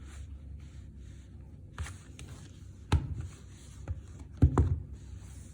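A CD and its packaging being handled: a few sharp knocks and clicks with light rubbing. The loudest knock comes about three seconds in and two more come close together near the end.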